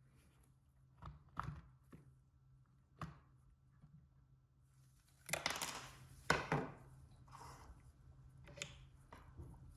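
Small metal parts being handled, with scattered light clicks and knocks and a louder burst of clattering about five to six and a half seconds in, over a steady low hum.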